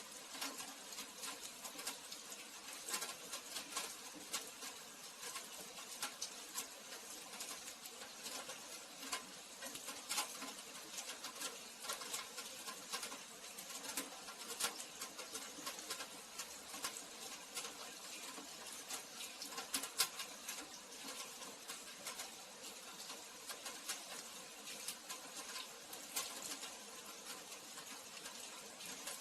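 Rain falling: a steady hiss with many small drops ticking and pattering irregularly on a hard surface, a few landing louder.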